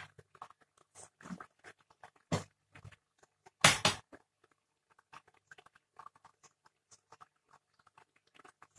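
Thick coconut-milk curry simmering in a pot, bubbling with irregular small pops and crackles, with two louder clicks about two and a half and four seconds in.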